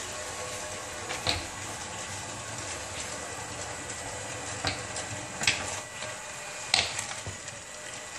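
Small electric drive motors of a homemade robot mop whirring steadily as it rolls across a tiled floor, with faint steady whining tones. A few sharp clicks and knocks are heard, the loudest two about five and a half and about seven seconds in.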